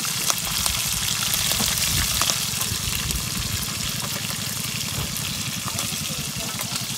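Whole round scad (galunggong) frying in hot oil in a pan: steady sizzling dotted with fine crackles.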